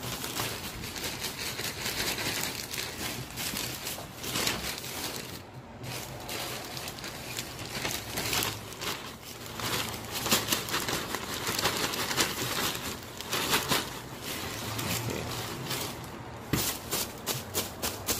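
Foam packing peanuts pouring from a plastic bag into a cardboard box: a steady clattering rustle of light foam pieces with crinkling of the bag. Near the end it changes to a quicker run of rustling swishes as a hand spreads the peanuts flat.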